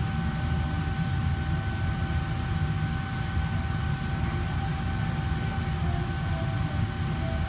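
Steady low rumble of commercial kitchen equipment running, with a thin constant whine above it.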